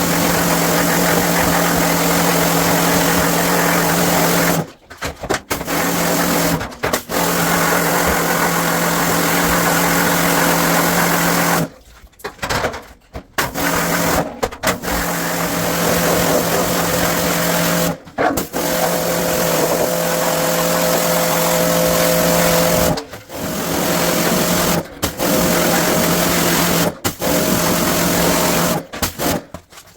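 Electric high-pressure washer running, a steady motor hum under the hiss of the spray, cutting out briefly about ten times and starting again as the trigger is released and pressed.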